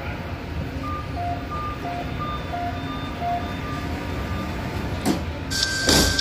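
Subway train running with a steady low rumble, over which an electronic signal beeps in an alternating high-low pattern, about three beeps a second, for a few seconds. Near the end there are two sudden noisy bursts, and a high steady tone comes in.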